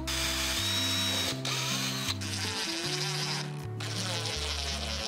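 Power drill driving screws through metal drawer slide runners into an MDF board, its motor whirring in several runs with brief pauses in between.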